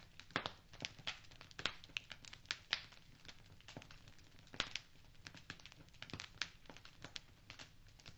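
Wood fire in a fireplace crackling, with irregular sharp pops and snaps, several a second at times, over a faint steady hiss.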